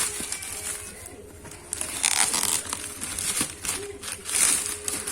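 Packaging being crinkled and torn open by hand, in rustling bursts that are loudest about two seconds in and again near the end.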